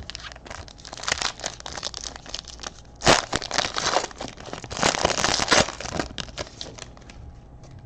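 Foil trading-card pack wrapper being torn open and crinkled, with sharp crackling rips about three seconds in and again around five seconds in.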